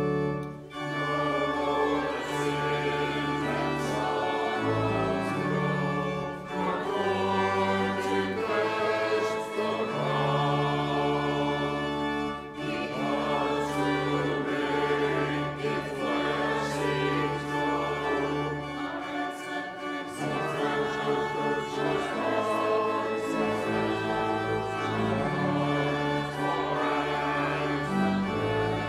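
A congregation and choir singing a hymn together, accompanied by organ, with the organ's held bass notes changing from phrase to phrase.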